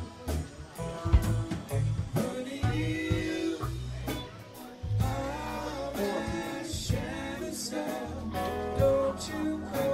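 A rock band playing, with a voice singing over guitar, bass and drums.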